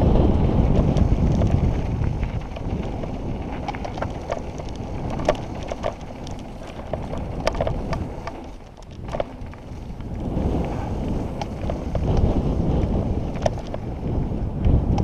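Wind buffeting a helmet-mounted microphone on a fast mountain-bike descent, with the tyres rolling over dry dirt and loose stones and the bike rattling in many sharp clicks. The rush eases briefly about eight or nine seconds in, then builds again.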